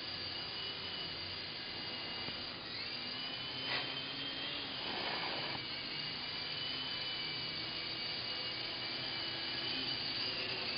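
Micro RC helicopter (hacked E-flite Blade mCX, coaxial rotors) hovering, its small electric motors and rotors giving a steady high whine that rises a little in pitch nearly three seconds in. A single sharp tick sounds about four seconds in.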